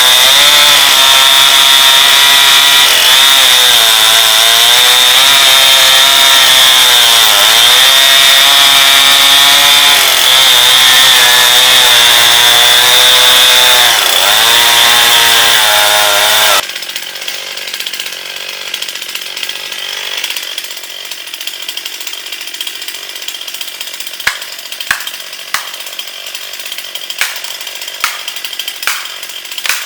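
Stihl MS261 C two-stroke chainsaw running at full throttle while cutting a tree, its pitch dipping several times as the chain bogs under load. The engine cuts off abruptly a little over halfway through, leaving a quieter hiss with scattered sharp snaps and clicks.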